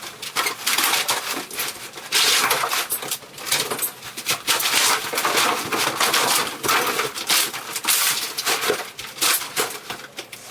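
Old bathroom wall and surround material being torn out by hand: irregular knocks and clatter mixed with scraping and crunching of breaking material.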